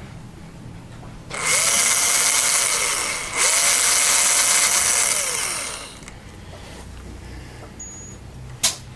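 Surgical bone drill boring the first screw hole into a tibia for a bone plate. It runs twice, for about two seconds each time, starting about a second and a half in, and its whine climbs as it spins up and sinks as it winds down. A single sharp click near the end.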